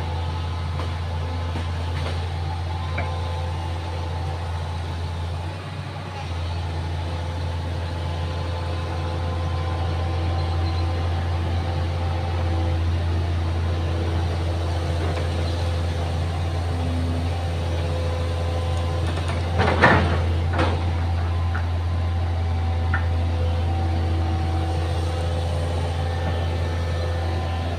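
Excavator's diesel engine running steadily, with a couple of sharp knocks about two-thirds of the way through.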